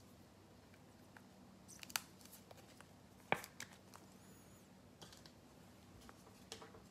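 Faint handling of trading cards and their foil pack wrappers: light rustling and a few sharp clicks and ticks, the loudest about two seconds in and just after three seconds, with a softer one near the end.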